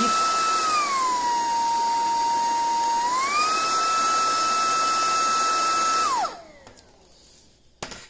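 Cordless stick vacuum's motor running with a steady high whine, switched between its two speeds. The whine drops to a lower pitch about a second in, rises back about three seconds in, and winds down when the vacuum is switched off about six seconds in. A click follows near the end.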